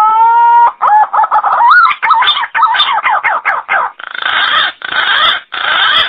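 Green pigeon (punai) calling: a long whistle that rises and then levels off, followed by a quick warbling run of gliding notes, then three harsh rasping notes near the end.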